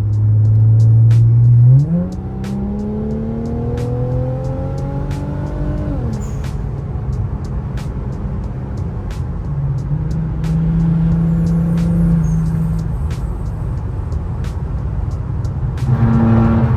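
Honda Type R engine, fitted with an aftermarket cold air intake, heard while driving: it holds a steady note, then climbs in pitch for about four seconds under acceleration before easing off and settling to a lower cruise.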